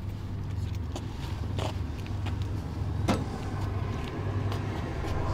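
Steady low vehicle rumble, with a few light clicks and knocks through it.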